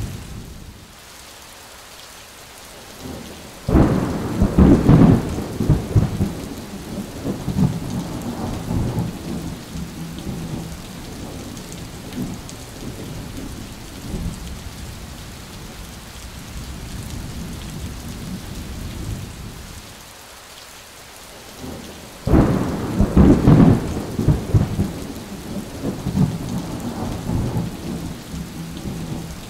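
Heavy rain falling steadily, with two claps of thunder, about four seconds in and again about twenty-two seconds in, each starting suddenly and rumbling for a few seconds.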